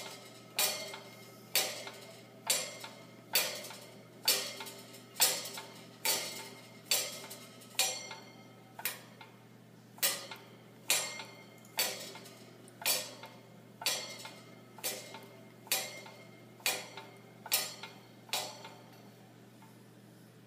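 Cockatoo knocking a metal object in its cage in play: a ringing metallic clank about once a second in an even rhythm, stopping shortly before the end.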